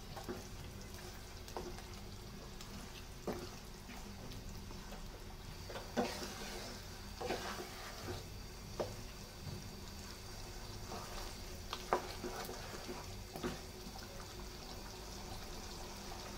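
Wooden spatula stirring chicken pieces through a thick yogurt-and-milk sauce in a nonstick pan, with short scrapes and knocks against the pan over a low, steady simmer.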